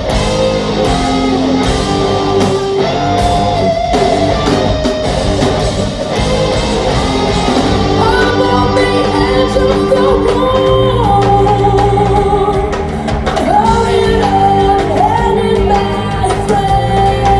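Hard rock band playing live, with a full band mix under a singer holding long sung notes, heard in a large hall.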